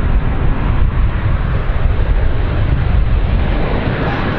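Jet engines of a Boeing 737-800-based BBJ2 on approach with gear down: a steady, loud rumble with a heavy low end and some wind on the microphone.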